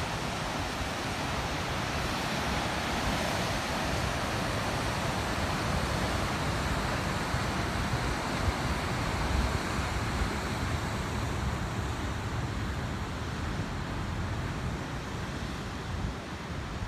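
Steady wash of ocean surf breaking on rocky shore, with wind buffeting the microphone as a low, fluttering rumble.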